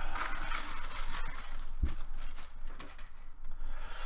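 Thin plastic wrapping crinkling and rustling as hands pull it off a polystone statue base. There is a single soft low thump about two seconds in, and the crinkling is quieter after that.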